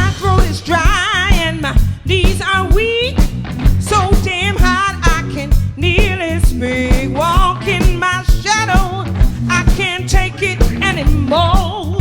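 Live blues-rock band playing: a steady drum beat and bass under a lead melody line that bends and wavers with heavy vibrato.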